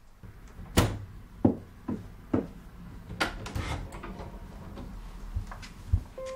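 A wooden interior door being handled and opened: a sharp click about a second in, then several thuds and knocks.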